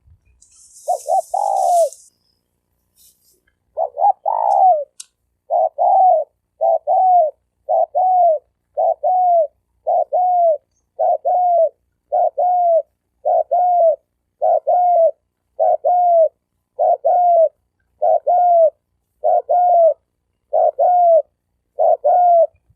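Male spotted dove cooing: short, two-part coos repeated steadily, about one phrase every second and a bit, after a more broken start. A brief hiss sounds near the start.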